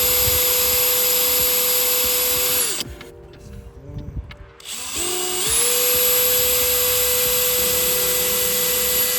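Power drill fastening a hood latch onto a carbon-fibre hood, in two long runs that each spin up to a steady whine and wind down. The first run stops about three seconds in, and the second starts a couple of seconds later.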